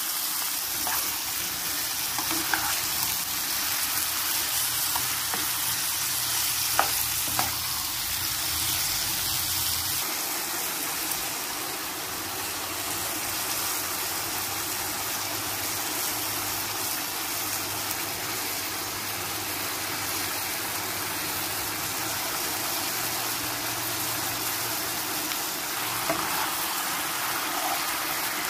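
Chicken thigh pieces sizzling in a nonstick frying pan as they are stirred and turned with a spatula, a steady frying hiss with a few light knocks of the spatula against the pan.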